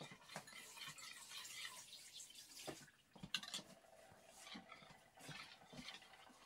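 Hand wire whisk stirring egg yolks in a plastic mixing bowl: faint wet swishing with a few light clicks of the whisk against the bowl.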